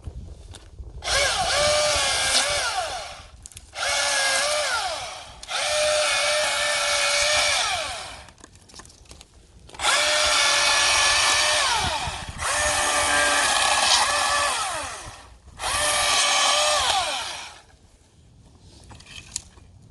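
Milwaukee M18 FUEL 16-inch battery chainsaw making six short cuts through small limbs. Each time the brushless motor whines up to speed, then winds down with a falling pitch when the trigger is released.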